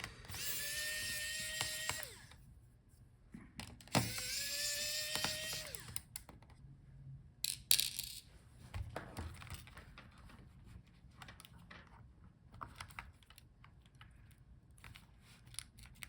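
Small electric screwdriver backing screws out of a laptop motherboard: two runs of about two seconds each with a whine that rises slightly, a brief third run, then light clicks and taps of small screws and parts being handled.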